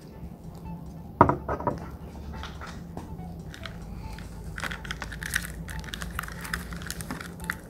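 A single knock about a second in, then a run of small crackling and rustling noises, over a low steady hum.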